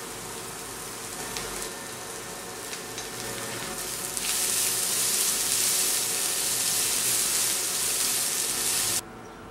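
Chicken, onion and sweet corn sizzling in a frying pan while being stirred with a utensil. The sizzle gets louder about four seconds in and cuts off suddenly near the end.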